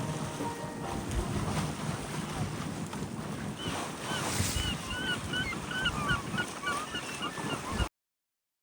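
Outdoor nature ambience: a steady rushing noise with low rumble, joined about halfway through by birds chirping in many short, quick calls. The sound cuts off abruptly near the end.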